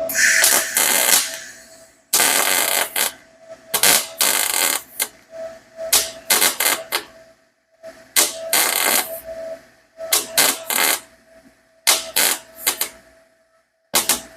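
Electric welding arc crackling in short bursts of about a second, seven or so in a row with brief pauses between, as a cracked stainless steel exhaust header is stitch-welded back together. A faint steady hum runs underneath between the bursts.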